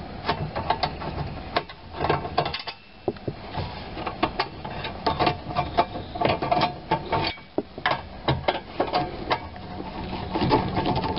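Ratcheting screwdriver clicking in quick runs, with short pauses, as the screws holding the metal plate under the dash are backed out.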